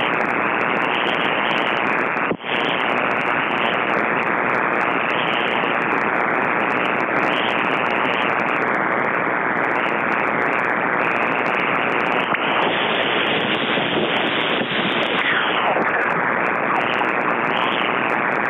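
Loud, dense crackling hiss of power-line noise from a nearby utility pole, heard through a Perseus software-defined shortwave receiver in synchronous AM mode as it is tuned across the shortwave bands. The noise comes up in wind-driven rain and buries every signal. It drops out for an instant about two seconds in.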